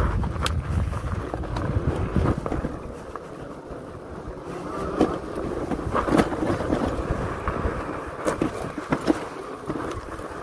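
Fat-tire electric bike being ridden over loose desert sand: a steady low rumble of wind on the microphone and tyres on the ground, with scattered sharp knocks and rattles from the bike.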